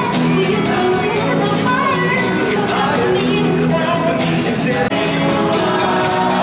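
Show music with singing played over the arena's sound system, continuous and loud.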